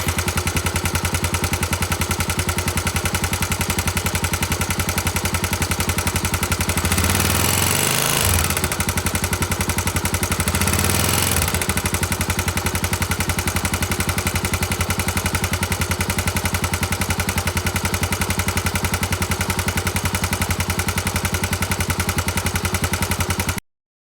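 Honda GB250 Clubman's air-cooled single-cylinder four-stroke engine idling with rapid, even pulses, revved briefly twice, making an abnormal mechanical noise. It stops abruptly near the end.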